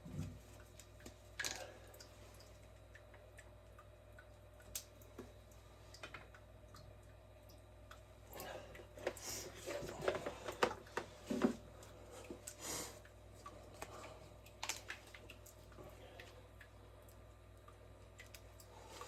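Scattered light clicks and knocks of parts and tools being handled, busiest in the middle, over a low steady hum.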